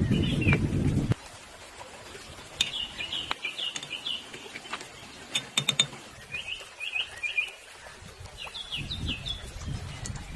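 A small bird chirping in three quick runs of short high notes, with a few sharp clicks between them. A low rushing noise cuts off suddenly about a second in and returns faintly near the end.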